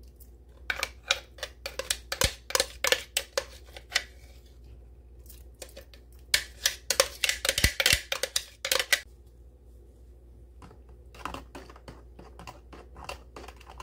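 Metal fork scraping and tapping against a plastic blender jar and tub as diced peaches are scraped out, a quick irregular run of clicks and scrapes. After a pause, softer clicks near the end as the peaches are stirred into the liquid cream base.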